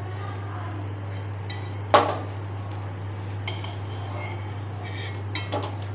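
Metal spatula scraping and knocking against a metal kadai while lifting fried dried red chillies out of the oil. One sharp clank about two seconds in, then a few lighter clinks.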